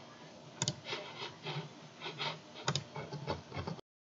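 Computer mouse double-clicks, twice, among faint rubbing and handling noise at the desk. All sound cuts off abruptly near the end.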